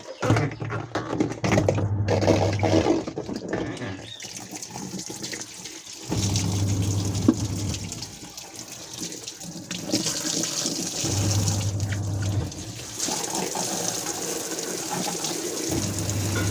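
Voltas Beko semi-automatic washing machine's wash tub running with water churning. The wash motor hums in short spells about every four to five seconds as the pulsator turns one way and then the other. There is no scraping or clicking, since the pulsator has been cleaned of the dirt that caused it.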